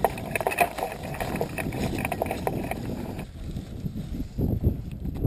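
Wind buffeting the glider-mounted microphone, mixed with crackling rustles and knocks from the hang glider and harness being handled. About three seconds in, the sound drops abruptly to quieter, lower rustling and rumble.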